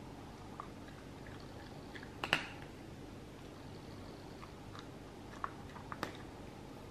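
Shetland sheepdog puppy eating from a bowl: quiet chewing with a few scattered crunches and clicks, the loudest about two seconds in.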